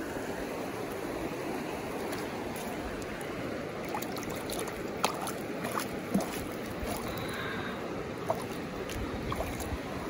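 Mountain stream running with a steady rush of water and a few short clicks and splashes.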